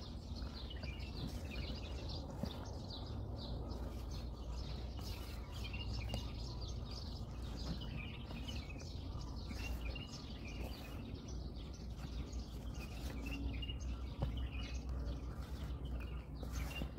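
Small birds chirping over and over above a steady low outdoor rumble, with a few faint clicks as a spatula works dough in a plastic tub.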